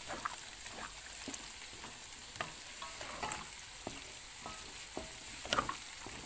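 Minced chicken and diced carrot sizzling in a metal wok with a little water, stirred with a spatula that scrapes and knocks against the pan several times over the steady frying hiss.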